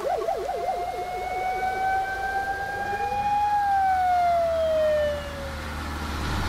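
Police siren in yelp mode, warbling rapidly up and down, then slowing about a second in into a long wail that rises slightly and then falls away. A low engine rumble runs underneath and grows louder near the end.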